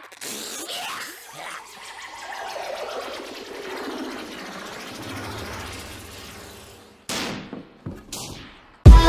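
Cartoon brawl sound effects: a rapid, continuous clatter of blows and scuffling for about seven seconds, then two short hits about a second apart near the end.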